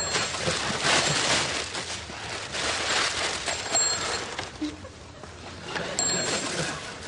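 Crinkling and rustling of tissue and wrapping paper as a present is unwrapped, in irregular noisy bursts that die down near the end.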